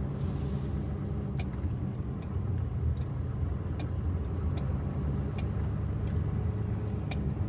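Truck's diesel engine running steadily at low speed during slow manoeuvring. There is a short hiss right at the start and a few scattered sharp clicks.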